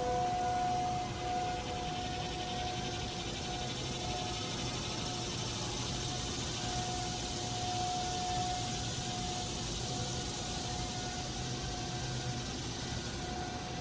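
Distant rotating outdoor warning sirens (2001-SRNB and 508 types) wailing on one steady pitch, their tone swelling and fading as they turn, loudest about two-thirds of the way through. Underneath is a constant high drone of cicadas and wind on the microphone.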